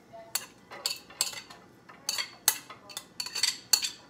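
Metal spoon clinking and scraping against a ceramic plate as chopped onion and garlic are knocked off into a pan. About ten sharp clinks, irregularly spaced, coming faster in the second half.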